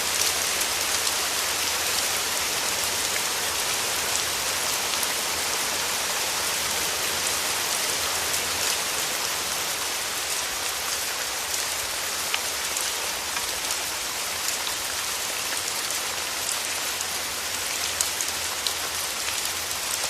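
Steady rain falling, a continuous hiss with fine scattered drop ticks and no change in intensity.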